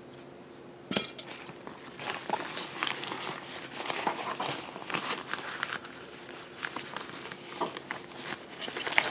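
Rustling of a stuff sack being rummaged through, with small clinks and knocks of gear inside it. A single sharp click comes about a second in.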